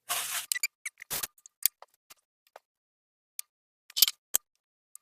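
Plain paratha cooking in a hot pan: a brief hiss as it goes in, then scattered sharp crackles and pops of fat, with a small cluster about four seconds in.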